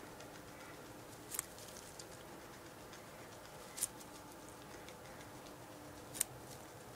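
Guinea pig chewing a carrot: faint gnawing with three sharp crunches, about a second and a half, four seconds and six seconds in.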